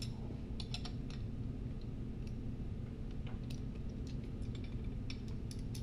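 Scattered light metallic clicks and ticks of a combination wrench and Allen key on the poly locks of a small-block Ford's roller rockers, as each poly lock is locked down after one turn of hydraulic-lifter preload. A steady low hum sits underneath.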